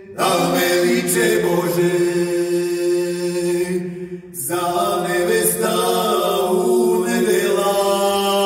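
Two men singing unaccompanied, chant-like, with long held notes over a steady low note. The singing breaks off briefly about four seconds in, then resumes.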